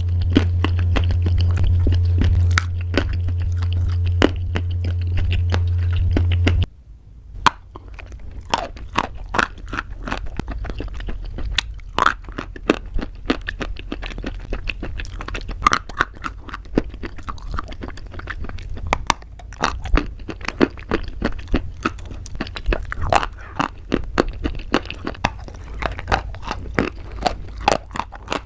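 Close-up crunching and chewing of crunchy pasta: a dense run of sharp, crackly bites and chews. A loud steady low hum runs under the first six seconds or so and cuts off suddenly.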